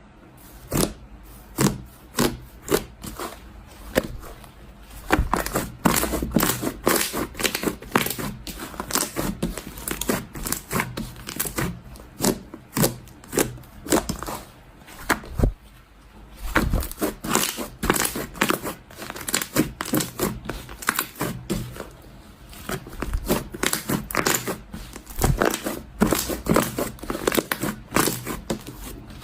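Clear slime being squished and worked by hand, giving irregular sticky pops and crackles.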